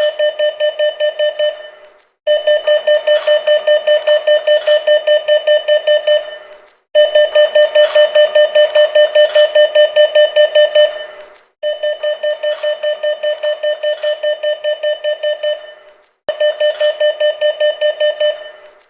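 Bank machine card warning beeping: fast repeated short beeps at one mid pitch, about six a second, in runs of about four seconds with short pauses between them, each run fading away at its end.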